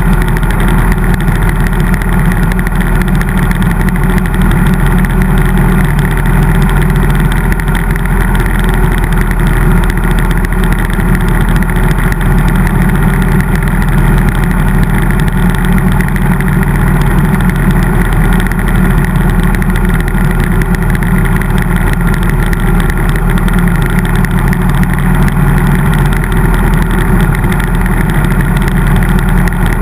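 Harley-Davidson V-twin motorcycle engine running steadily at cruising speed, with no revving or gear changes, over a rush of wind noise.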